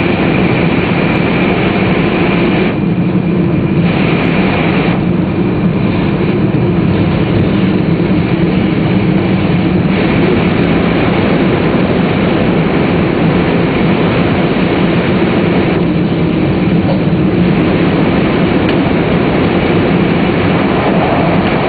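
Tōhoku Shinkansen Hayate train running at speed, heard from inside the passenger car: loud, steady running noise with a constant hum over it, through a tunnel.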